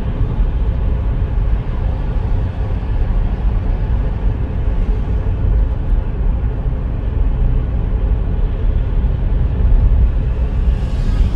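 Steady low rumble of a moving vehicle, starting and stopping abruptly.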